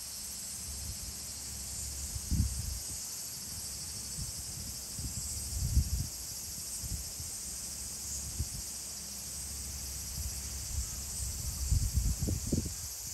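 Steady high-pitched insect chorus. Uneven low thumps and rumbles come through it, strongest near the end.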